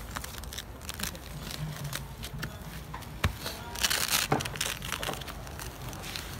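Rustling and crinkling of an orange seat cover being pulled and tucked around the base of a Mazda Miata seat, with scattered small clicks and taps as its strap is worked under the seat; the loudest stretch of rustling comes about four seconds in.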